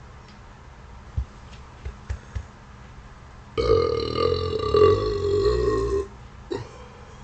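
One long, loud burp lasting about two and a half seconds, starting about halfway in, its pitch sinking slightly toward the end, with a brief sound half a second after it. A few faint clicks come before it.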